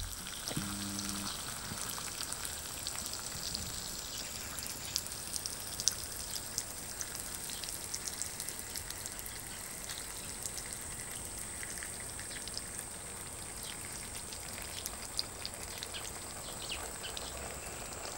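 Water spraying from the handheld nozzle of a NEMO Helio Pressure Shower: a steady hiss with scattered pattering drops as the spray falls on plants and the ground. The stream is running on the pressure from eight foot pumps and is slowly weakening as the tank pressure drops.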